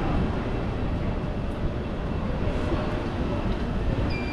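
Rush-hour city ambience: a steady low rumble of vehicles, with a short high electronic beep near the end.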